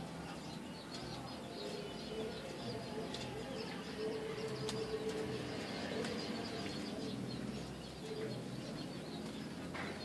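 Peach-faced lovebird bathing in a metal basin of water: splashing and fluttering its wings, with one louder flurry near the end.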